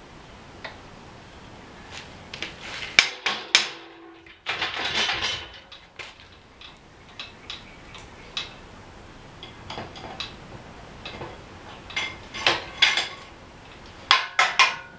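Scattered metal clanks, clicks and a short rattle from hands-on work at a shop-crane coil-spring compressor and strut. The knocks come in clusters, a few seconds in and again near the end, with quiet room noise between.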